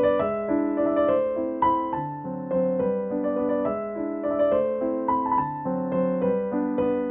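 Background piano music: a melody of single notes played one after another at an easy pace.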